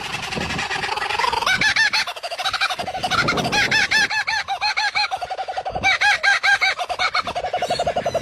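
An animal's call, bird-like: a rapid run of short, repeated notes at about ten a second, broken by a few brief pauses.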